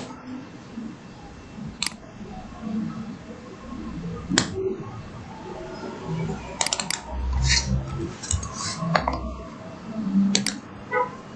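Computer mouse clicking: sharp, irregular clicks, about a dozen, some coming in quick pairs and triplets.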